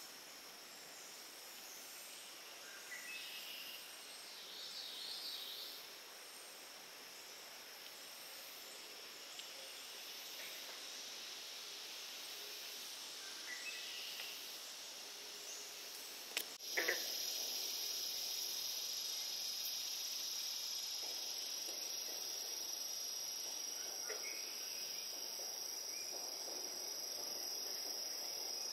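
Summer insects droning steadily at a high pitch, stepping up suddenly a little past halfway and staying louder, with a few short bird chirps over the drone in the first half.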